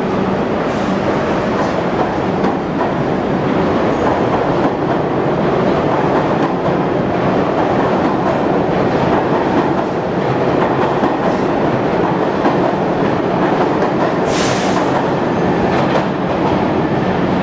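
New York City subway train pulling out of the station: steady loud rumble and clatter of the cars and wheels on the rails as it moves off past the platform. A brief hiss about fourteen seconds in.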